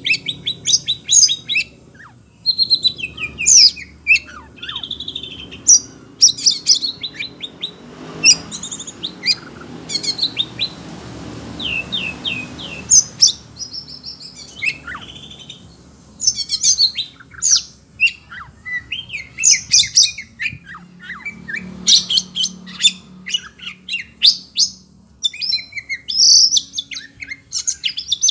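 Oriental magpie-robin (kacer) singing loud, rapid, varied chirping phrases, which the keeper takes for agitation at hearing other birds. A hissing noise runs underneath for a few seconds in the middle.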